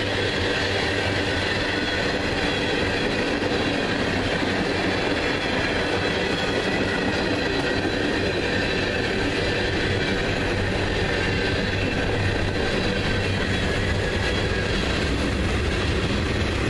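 Manifest freight train's tank cars and boxcars rolling past close by: a steady rumble of steel wheels on the rails, with a thin steady ringing from the wheels above it.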